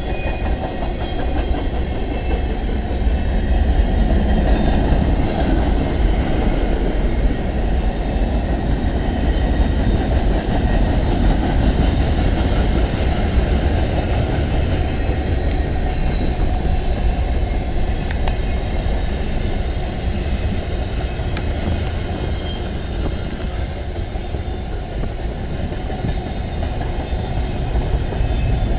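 Freight cars of a CN train rolling past: a steady rumble and clatter of steel wheels on the rails, with faint wheel squeal.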